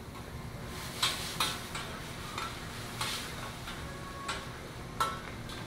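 A teppanyaki chef's metal spatulas clacking and scraping on a flat steel griddle: about seven sharp metallic clacks at irregular intervals, some ringing briefly, over a steady sizzle of food frying.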